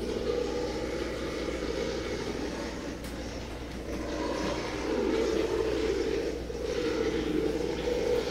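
Rough, rumbling electronic drone that rises in pitch and grows louder about halfway through, over water being stirred by hand in an amplified glass tank.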